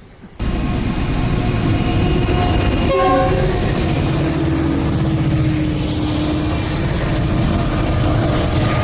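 A train running loud and close, its horn sounding about three seconds in over the steady rumble of the train. The sound begins abruptly at a cut.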